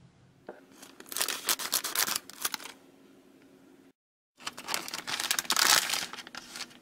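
Plastic bag of a Japanese DIY candy kit crinkling and tearing as it is handled and opened, and the tray inside slid out. There are two stretches of loud crinkling, broken by a moment of dead silence just before the second.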